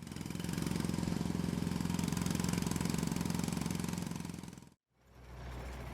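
Jackhammer breaking up asphalt: a rapid, steady hammering that runs for about four and a half seconds and cuts off suddenly, followed by a quieter low engine rumble.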